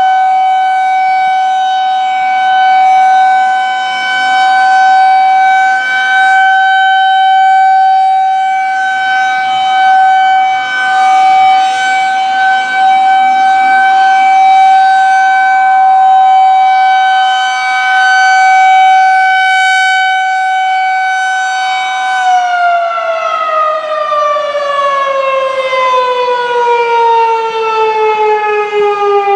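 Federal Signal 2001-130 rotating electromechanical warning siren sounding a steady alert tone, its loudness swelling and fading as the horn turns. About three-quarters of the way through it begins winding down, the pitch falling smoothly as the rotor slows at the end of the alert signal.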